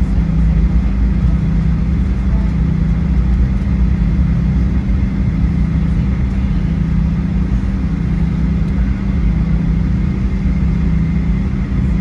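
Steady drone of a Boeing 737-800's CFM56-7B jet engines and airflow heard inside the cabin, a deep rumble with a constant low hum and no rise or fall in pitch.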